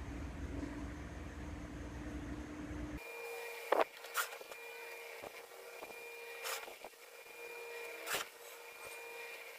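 Quiet steady hum of room background with a few light clicks and taps, the sound of hands handling a plastic box and glue bottle.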